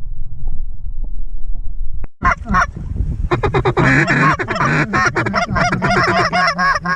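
Low rumble, then about two seconds in a burst of loud, rapid goose honks and clucks, many overlapping, that runs on without a break.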